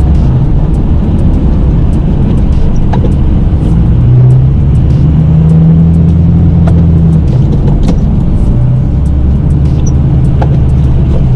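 Snow-plow truck's engine running under load, its pitch stepping up and down as it pushes snow, with a few faint clicks.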